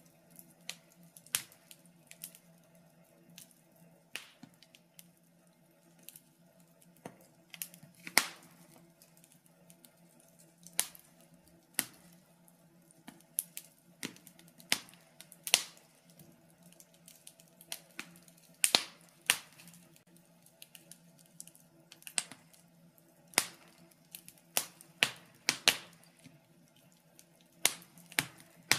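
Wood fire in a fireplace crackling: irregular sharp pops and snaps, roughly one a second and some much louder than others, over a faint steady low hum.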